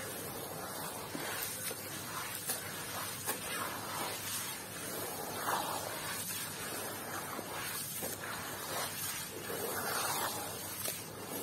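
Hands squeezing and kneading gritty red dirt in muddy water: wet squelching and squishing with grainy crackle and small splashes, a few louder squishes about halfway through and near the end.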